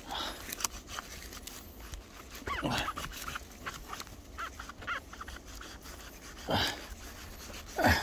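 Short whining or grunting cries that fall steeply in pitch, three of them a few seconds apart, with light clicks and scrapes in between as a knife cuts an oyster mushroom cluster from a tree trunk.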